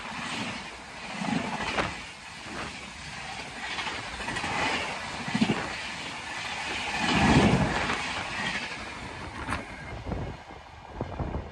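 Indian Railways LHB passenger coaches passing at speed: a continuous rush with a rapid, repeated clatter of wheels over rail joints and swells of low rumble. It eases and grows quieter near the end.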